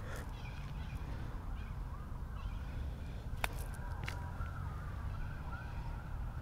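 A putter striking a golf ball: one sharp click a little past halfway, with a fainter click just after, over a steady low rumble of wind on the microphone. Faint wavering tones sound in the background.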